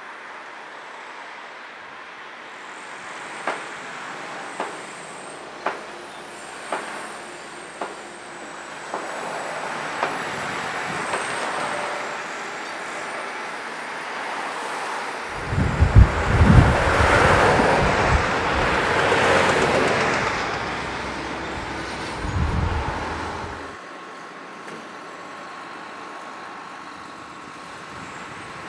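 Building demolition with heavy machinery: a run of sharp knocks about a second apart, then a loud, low rumble with crashing for several seconds, over the steady noise of the site.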